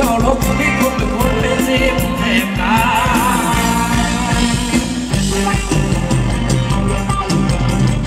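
Live band playing loud Thai ramwong dance music, with a steady drum beat, a bass line and a melody that wavers about three seconds in.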